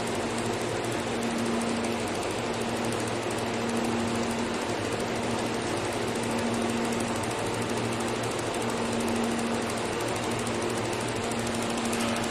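Steady mechanical hum and whir of a 500 W fiber laser welding machine at work, with a low tone that swells and fades about every two seconds.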